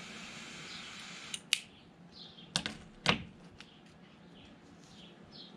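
Cigar lighter clicking, a handful of sharp clicks between about a second and a half and three seconds in, as a cigar is lit. Faint bird chirps throughout.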